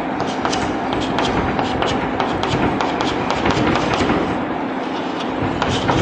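Chalk tapping and scratching on a blackboard in many quick short strokes as small plus signs are marked around a drawn circle, most of them in the first four seconds and a few more near the end. A steady background noise runs underneath.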